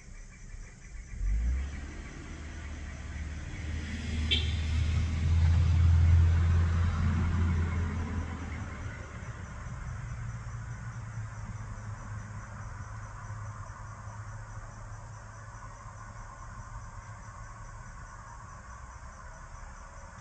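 A low vehicle rumble swells over the first few seconds, is loudest around six seconds in, then fades to a steady low hum, as of a motor vehicle passing by. A brief high squeal comes about four seconds in, and insects such as crickets keep trilling faintly underneath.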